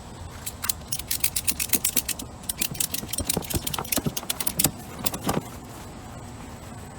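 Ratchet strap being cranked tight around a fridge: quick, uneven runs of sharp metal clicks that stop about five seconds in.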